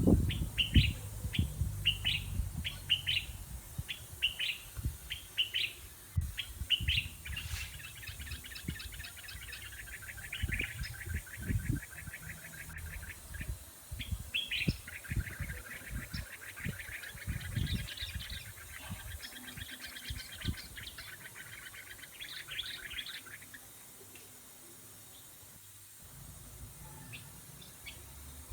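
A small songbird singing: short chirps, then long rapid trills about eight seconds in and again from about fifteen to twenty-three seconds. Dull low knocks sound through the first half, and the song fades to faint chirps near the end.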